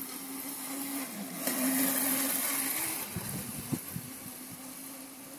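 Small battery-powered electric mini dirt bike running with a steady motor hum as it rides by, its battery running low. The hum swells with some hiss as the bike passes close, then eases as it rides away, with a few light knocks about halfway through.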